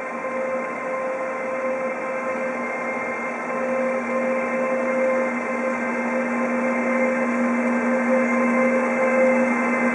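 Deutsche Bahn electric locomotive hauling a freight train approaches at steady speed. Its electric drive gives a steady whine of several fixed tones over the rolling rumble of the train, and the whole grows gradually louder as it nears.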